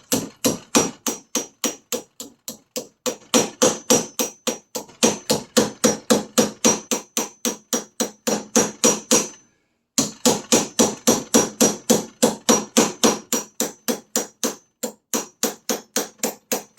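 Hammer blows on copper, curling and shaping the end of a flattened copper pipe into a welding spoon. The blows come about four a second, each ringing briefly, with a short pause about halfway through.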